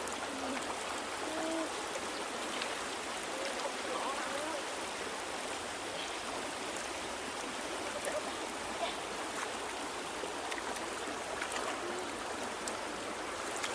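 River water flowing steadily, with faint voices now and then.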